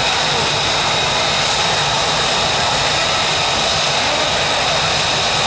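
Lockheed Martin F-35A Lightning II's single Pratt & Whitney F135 turbofan running at taxi power as the jet rolls past close by: a steady rushing roar with a high whine held on one pitch.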